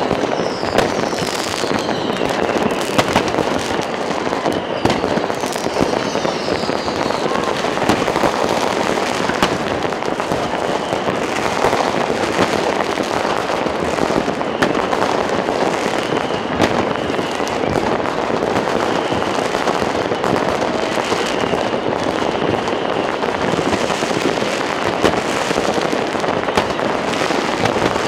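New Year's Eve fireworks going off without a break: a dense, continuous crackle of firecrackers and bangs. Several whistling rockets fall in pitch in the first few seconds, with a few more later, and crowd voices run underneath.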